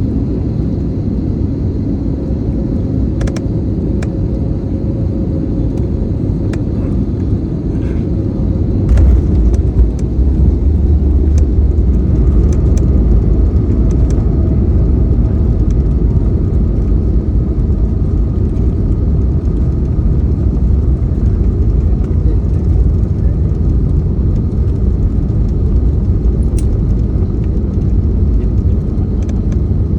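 Airliner cabin noise: a steady low rumble of engines and airflow, with a few faint clicks. About nine seconds in, the rumble steps up and stays louder and heavier.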